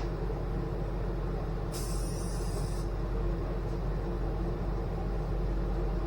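Aerosol spray paint can hissing in a single spray lasting about a second, a little under two seconds in, over a steady low hum.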